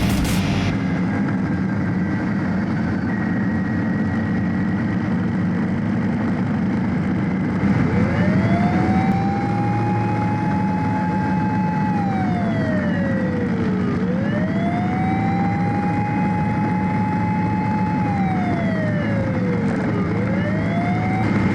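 Steady motorcycle engine and wind noise heard from the bike. From about a third of the way in, an emergency-vehicle siren wails over it, rising to a held high note and then sliding down, twice over, and starting a third rise near the end.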